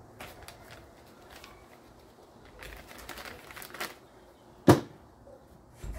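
Light clicks and rustling of small parts being handled on a workbench, with one sharp knock about three-quarters of the way through, the loudest sound.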